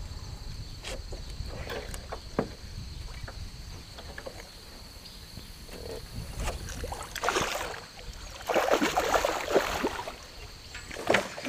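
A hooked musky thrashing and splashing at the surface close to the boat, in noisy bursts a little past the middle and again near the end. Under it run a low rumble and scattered knocks from rod and reel handling.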